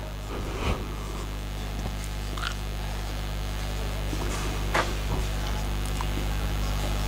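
Marker pen on a whiteboard, a few short squeaks and scratches as words are written, over a steady electrical hum.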